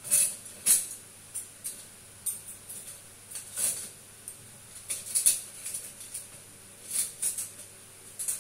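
Metal, plastic and wooden ladles and spatulas being put one by one into a painted old mixer-grinder jar. They make irregular clinks and clatters against the jar and each other.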